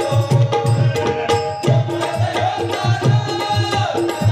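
Bhajan music in the Malvani gavlan style: a harmonium holding steady reedy notes over a hand drum beating a quick, regular rhythm.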